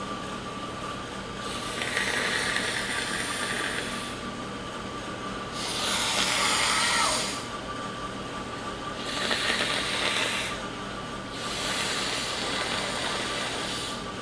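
A person blowing their nose four times, each blow a hissing rush lasting a second or two, in an echoing bathroom. A steady air-conditioner hum with a thin high whine runs underneath.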